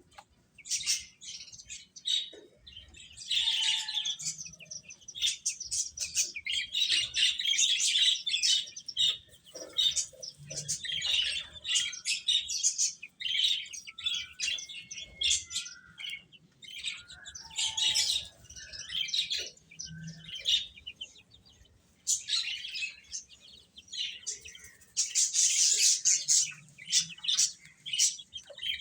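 Baby chicks chirping: many short, high-pitched calls overlapping in dense flurries, with brief lulls between them.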